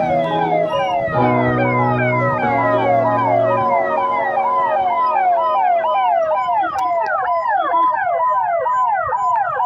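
Police vehicle sirens in a passing convoy, several overlapping, yelping in fast repeated up-and-down sweeps of about three a second that grow stronger in the second half. A steady low tone sounds under them for the first few seconds.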